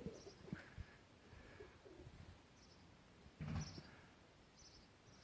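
A bird giving a few faint, short, high chirps, with one louder call about three and a half seconds in.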